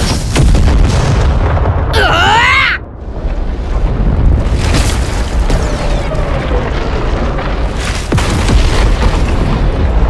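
Battle sound effects: a continuous heavy low rumble of explosions with repeated sudden booms. About two seconds in, a short pitched sound dips and then rises.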